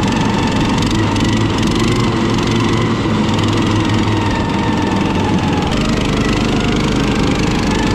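Tinger Dog Pro motor-dog's 13.5 hp four-stroke Briggs & Stratton engine running steadily while driving, its note shifting slightly about six seconds in.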